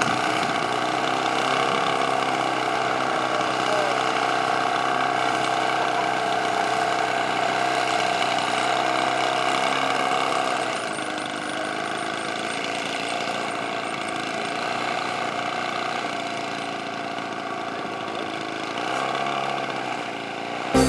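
DLE two-stroke gasoline engine of a 47% Pilot-RC Decathlon model airplane idling steadily on the runway, briefly rising and falling in pitch near the end.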